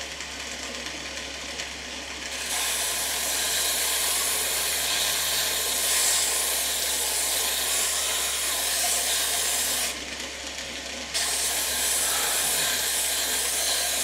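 Small homemade belt sander running on a finger-sander belt, with a piece of hardwood pressed against it: a steady hiss of sanding over a low motor hum. There are two passes, the first from about two seconds in, then a break of about a second, then the second running past the end.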